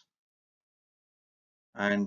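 Dead silence, then a man's speaking voice starts near the end.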